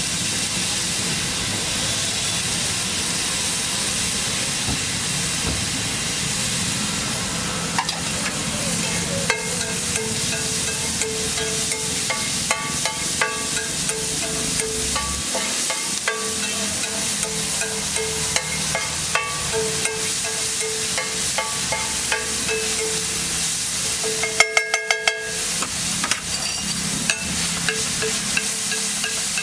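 Egg mixture sizzling on a hot griddle, with a metal spatula scraping and tapping against the pan; about three quarters of the way through comes a quick run of sharp taps.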